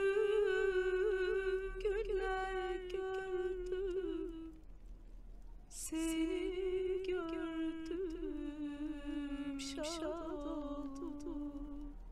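A woman's voice humming a slow wordless tune in two long phrases. Each is held on a wavering note that gradually sinks in pitch. A quick breath comes between the phrases about six seconds in.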